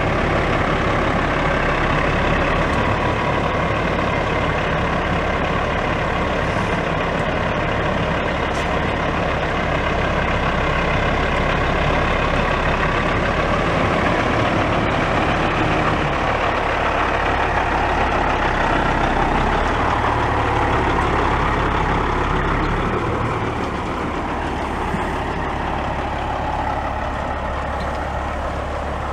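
Caterpillar C15 inline-six diesel engine of a Peterbilt 379 semi truck running steadily. Near the end the truck pulls away.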